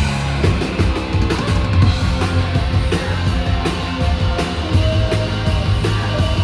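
Live alternative rock band playing loud: drum kit hitting a steady beat under electric guitar and bass.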